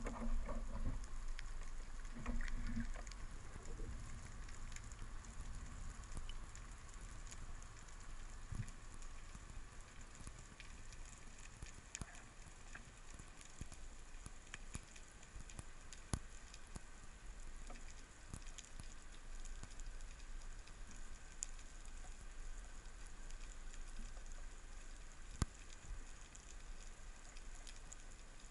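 Underwater ambience picked up by a camera in its waterproof housing: a steady fizzing crackle of tiny clicks, with a few sharper single clicks. Low water rumble from the diver's movement is louder in the first few seconds.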